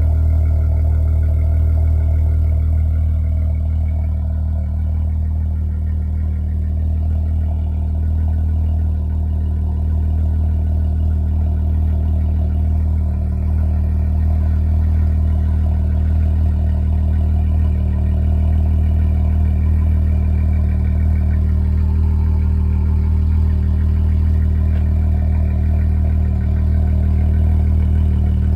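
Dodge Charger SXT's 3.6-litre V6 idling steadily through Flowmaster Super 10 mufflers soon after a cold start, with a deep, even exhaust note.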